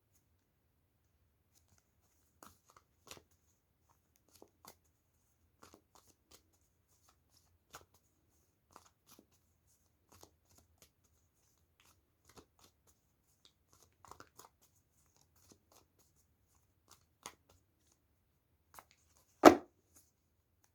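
A tarot deck being shuffled and handled: faint, scattered clicks of cards, then one loud slap of cards on the table near the end.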